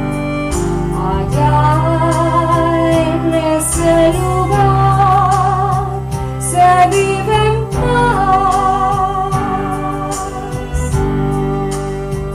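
A slow, tender song: a voice holding long notes with vibrato over sustained low instrumental accompaniment.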